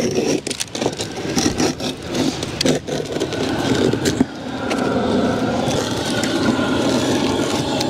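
Utility knife scraping and slicing through peel-and-stick rubber roofing membrane in short, irregular strokes. About four seconds in, a steady engine-like drone sets in and from then on is the loudest sound.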